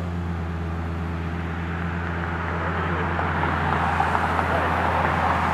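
Lexus LFA's 4.8-litre naturally aspirated V10 running steadily at low revs as the car pulls slowly away: an even low drone that grows slightly louder toward the end.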